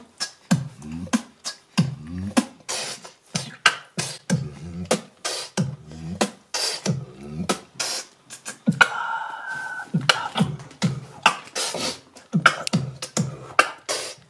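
A man beatboxing: a steady beat of deep mouth kick-drum thumps alternating with sharp snare and hi-hat clicks, with a short held whistle-like note about nine seconds in.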